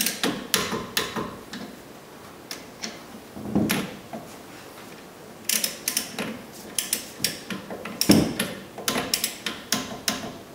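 Torque wrench ratchet clicking in several strokes as the front brake caliper bolts are tightened to about 20 foot-pounds, with two heavier knocks about three and a half and eight seconds in.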